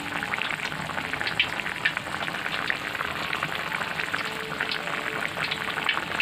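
Chopped red chilies, tomato and spice paste sizzling in hot oil in a steel wok: a steady frying sizzle full of quick crackling pops.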